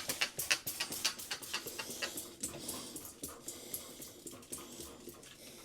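Hand trigger spray bottle squirted in quick succession: short hissing sprays about three or four a second, thinning out and getting softer in the second half.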